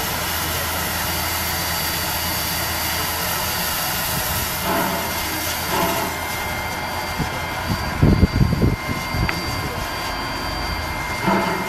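Steam locomotive 621 venting steam with a loud, steady hiss from its cylinder drain cocks. The hiss eases about six seconds in, and there is a short run of heavy low thumps around eight seconds.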